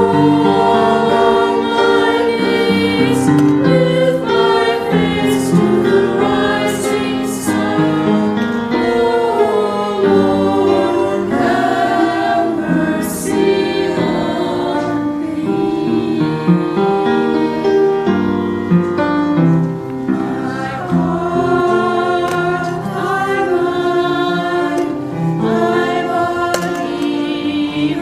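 A small church choir singing a sacred song together in sustained, steady phrases.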